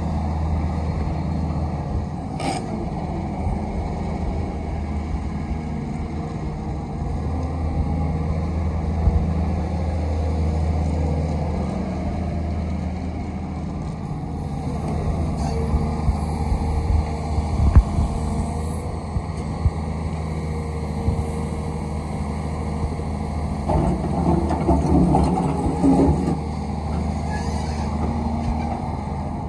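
Volvo EC360BLC long-reach excavator's diesel engine running steadily under working load while the hydraulics move the long arm, with a few sharp knocks. There is a louder, rougher stretch about three-quarters of the way through.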